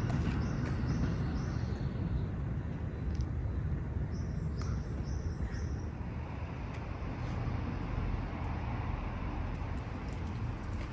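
Steady low outdoor rumble with a small bird chirping in two quick runs of about four short high notes, one just after the start and one about four seconds in.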